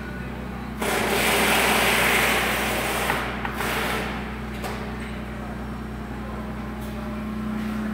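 Steady low hum inside a car cabin. From about a second in, a loud rushing hiss runs for two seconds and fades out by four seconds, and a few light clicks follow.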